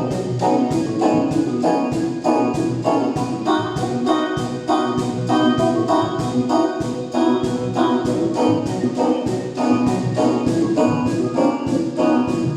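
Music with a steady, even beat of roughly three beats a second under sustained pitched notes.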